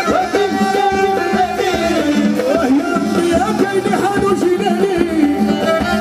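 Live Moroccan popular music played loudly over a concert sound system: a singer with a melodic instrument line and percussion, continuing without a break.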